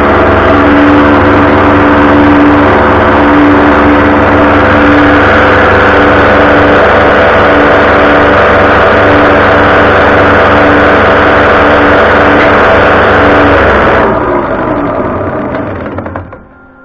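Diesel fuel injection pump running on a test bench, a loud steady mechanical whine with many steady tones, tested after a spring in its check valve was replaced because the valve gave too much pressure. About fourteen seconds in it spins down, its pitch falling, and stops.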